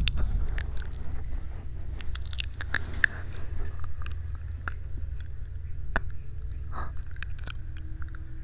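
Close-up ASMR mouth sounds into a binaural microphone: scattered wet clicks and smacks at an irregular pace, over a steady low hum.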